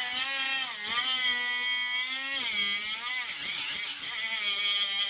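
Milwaukee M12 cordless angle grinder with an abrasive cutoff wheel cutting slowly into an ATV tire at its belts. The motor pitch dips and recovers several times as the wheel bogs under load, over a steady high grinding hiss.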